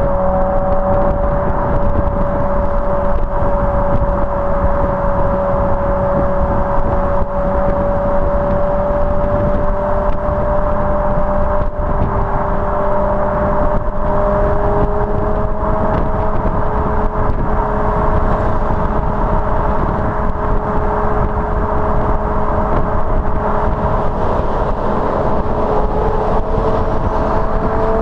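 BMW M5 E61's V10 engine heard through its standard rear exhaust silencers while cruising, a steady drone that rises gently in pitch after the halfway point and again near the end as the car picks up speed. Wind and road noise rumble heavily under it.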